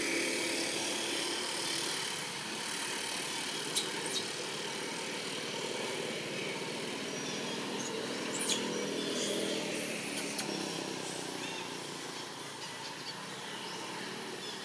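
Steady hum of a motor engine running in the background, its pitch sagging a little about two-thirds of the way through, with three short high clicks around four and eight seconds in.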